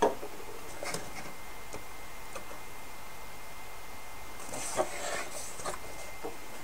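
Small clicks and light knocks of a wooden model boat hull being handled and its glued deck pressed down by hand, a sharp click at the start and a short cluster of taps and rubbing about five seconds in, over a faint steady high hum.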